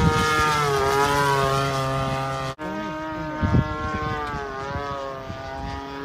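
Radio-controlled model airplane's motor and propeller droning as it flies overhead, the pitch dropping as it passes. The sound breaks off abruptly about two and a half seconds in, and a similar drone carries on at a steadier pitch.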